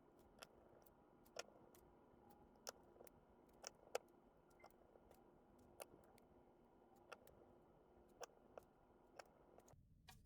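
Faint, sharp little clicks and taps at irregular intervals, roughly one a second, from small tools and phone parts being handled during smartphone reassembly, over a faint steady hum. The hum cuts off abruptly near the end.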